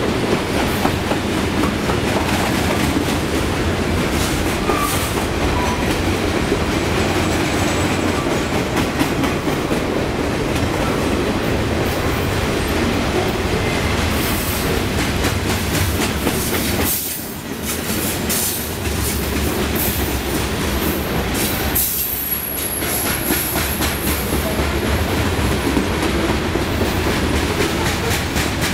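Freight cars rolling past close by: steel wheels clattering over rail joints in a steady rush that dips briefly twice. A thin, high wheel squeal comes in during the second half.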